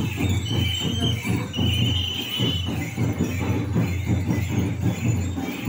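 Live drumming for a tribal street dance, rapid and dense, with metallic jingling over it. A high held note sounds on and off during the first couple of seconds.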